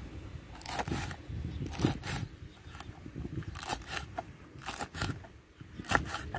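Kitchen knife slicing a green hot pepper into rings on a wooden cutting board, each cut a short crunch ending in a tap of the blade on the board, about ten cuts at an uneven pace.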